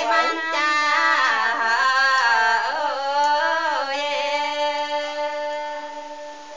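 A woman singing a slow, gliding ethnic folk melody, ending on a long held note that fades away.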